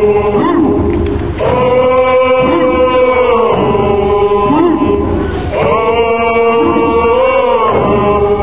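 A group of Nisga'a dancers chanting a traditional song in unison, in long held notes of about two seconds, with sliding rises and falls between phrases. Hand drums sound underneath.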